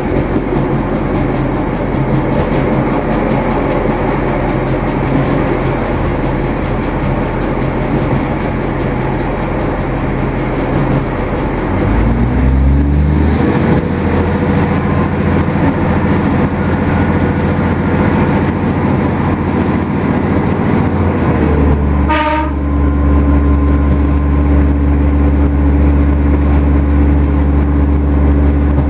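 Irish Rail 2600 class diesel railcar under way, heard through an open window: the underfloor diesel engine, wheels on rail and rushing air. About twelve seconds in the engine note climbs as it picks up power, and a little after twenty seconds a brief clunk is followed by a deeper, louder steady engine note.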